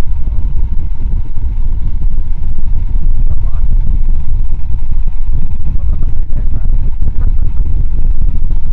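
Royal Enfield Himalayan motorcycle riding along, its single-cylinder engine running under a loud, steady rumble of wind on the microphone.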